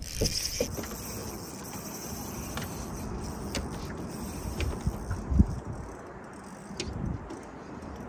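Low steady background noise aboard a small boat, with scattered light ticks and one soft thump about five and a half seconds in.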